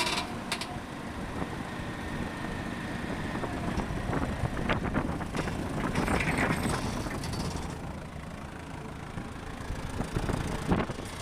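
Heavy diesel machinery running at a worksite, the engine rumble of an excavator and dump truck, louder in the middle and easing off near the end, with a few clanks.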